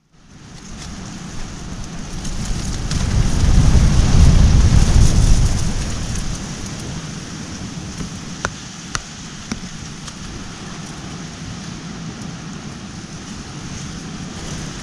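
Strong wind gusting over the microphone: a rough noise with a heavy low rumble that swells to its loudest a few seconds in, then settles. A few sharp ticks stand out about halfway through.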